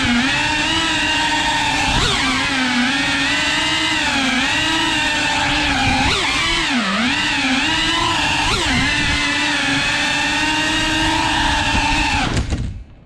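FPV quadcopter's brushless motors and propellers whining, the pitch rising and dipping with each throttle change. Near the end the sound drops away for under a second, then comes back.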